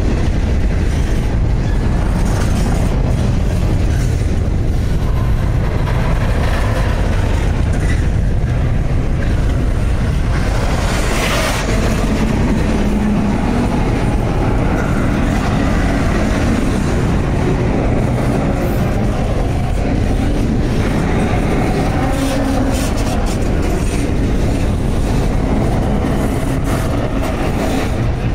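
BNSF intermodal freight train's flatcars, loaded with highway trailers, rolling past close by: a steady, loud rumble of steel wheels on rail with scattered clicks, and a brief harsh burst of noise near the middle.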